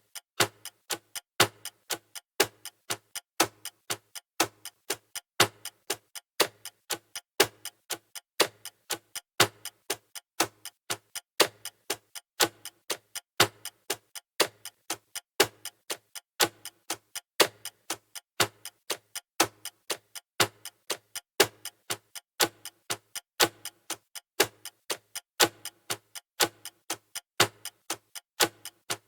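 Clock ticking steadily, as a countdown, with sharp, evenly spaced ticks.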